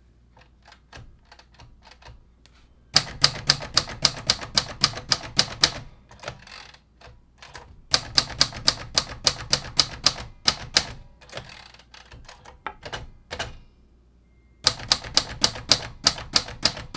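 Royal Sabre manual typewriter being typed on: keys struck in three quick runs of about five strokes a second, the typebars snapping against the platen, with short pauses between runs.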